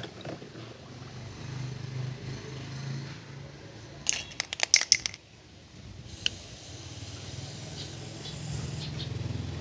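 A small die-cast toy car splashes into liquid at the very start. About four seconds in, a quick run of sharp clicks and clatters comes as a toy car hits and bounces on a wooden tabletop, all over a steady low hum.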